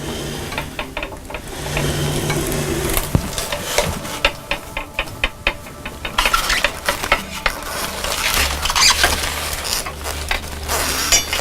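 Aluminum foil crinkling and crackling in irregular bursts of small clicks as a foil-covered sculpture armature is squeezed and bent by hand.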